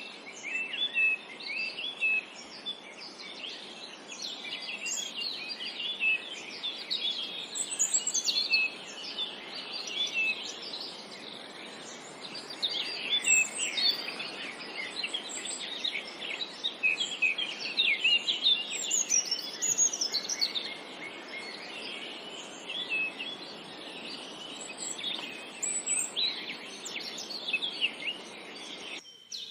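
Several songbirds chirping and trilling over one another, many short calls overlapping, over a steady background hiss of forest ambience. The sound drops out briefly near the end.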